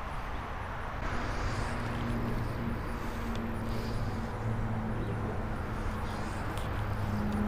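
A motor engine running steadily in the background, a low even hum that comes in about a second in, over outdoor noise.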